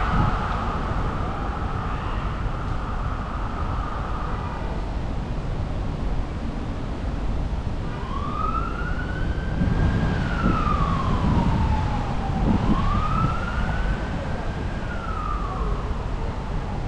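Emergency vehicle siren wailing in slow rising and falling sweeps, starting about halfway through. It sounds over a steady low rumble of city traffic. A steady high tone is heard in the first few seconds and fades out.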